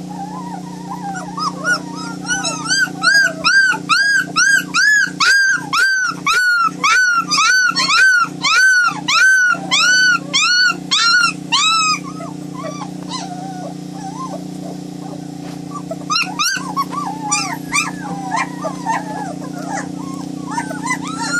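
White German Shepherd puppies whining and crying: a run of high, arched cries, about two a second, from a couple of seconds in until about twelve seconds, then softer scattered whimpers near the end. A steady low hum lies underneath.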